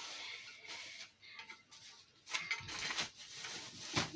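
Faint handling noise from unpacking a cookware set: scattered light clicks and rustles, a small cluster of ticks in the middle and a sharper click near the end.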